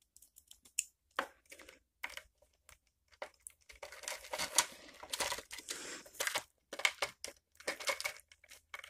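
Small plastic camera-mount parts being handled: scattered light clicks and rustling, getting busier after about three and a half seconds.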